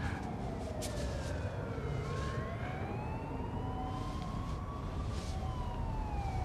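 A siren wailing slowly: it falls in pitch, rises for a few seconds, then falls again, over a steady low traffic rumble.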